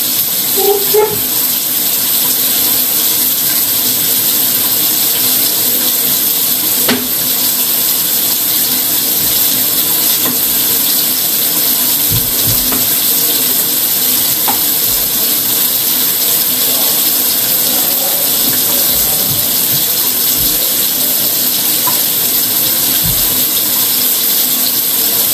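Steady, loud hiss, like running water, unchanging throughout, with a few faint low bumps.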